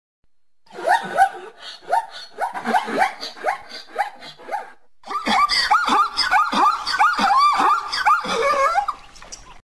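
Rapid series of short, yelping animal calls, each falling in pitch; a second, denser run of calls starts about five seconds in.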